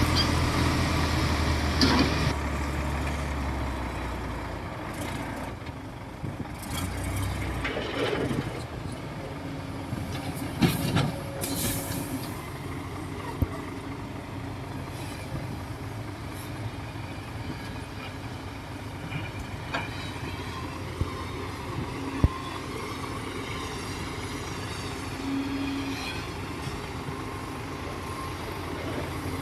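Heavy vehicle engine running, loud and low for the first few seconds and then quieter, with a few sharp metallic knocks.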